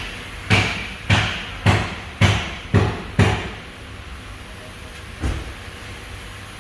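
Six sharp knocks in quick succession, about two a second, each with a short ring, then one more knock a couple of seconds later, over a steady background hiss.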